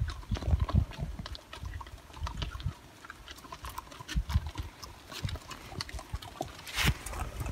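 Hooves of a string of pack mules and horses clip-clopping irregularly on a rocky trail, over a low uneven rumble of wind on the microphone, with one louder knock near the end.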